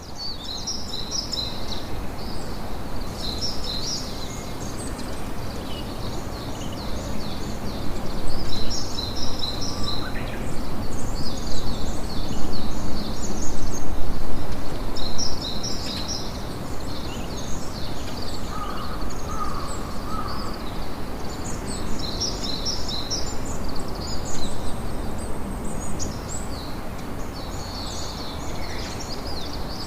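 Campfire crackling and hissing, with a denser, louder stretch in the middle. Small birds chirp over it in repeated quick high bursts.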